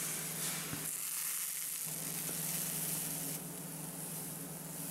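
Cornbread batter sizzling as it is poured into hot corn oil in a cast iron skillet, the sign that the oil is hot enough. The sizzle starts at once and eases a little about three seconds in.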